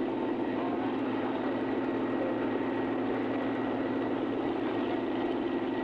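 Steady mechanical drone of a running engine, unchanging throughout, with a faint steady high whine above it.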